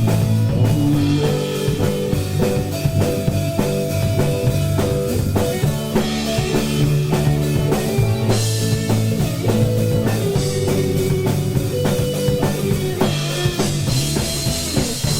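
Rock band playing live through an instrumental passage with no vocals: a drum kit keeps a steady beat under guitars.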